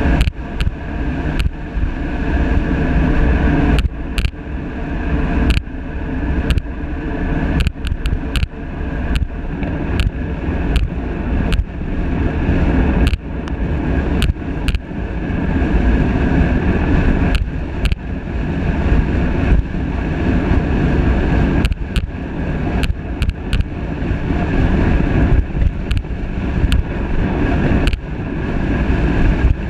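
Wind rushing over a handlebar-mounted GoPro's microphone as a road bike descends at about 45 mph, a heavy steady rumble with frequent sharp knocks as the bike rolls over cracks in the pavement.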